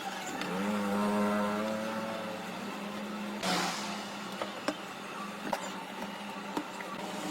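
A small motor running with a steady hum; about half a second in, a higher whine rises and holds for about two seconds. A short hiss follows a little past the middle, with a few scattered clicks.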